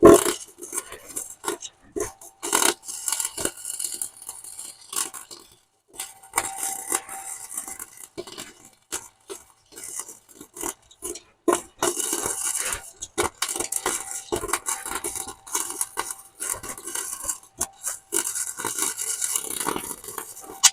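Welding arc crackling and sputtering in irregular runs of a second to several seconds, with short breaks between beads.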